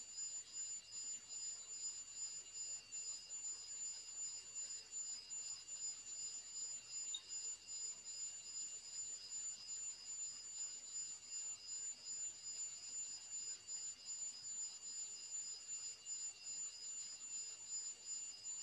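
Faint, steady, high-pitched electronic whine: several thin tones held together at once over a low hiss, with no voice or music.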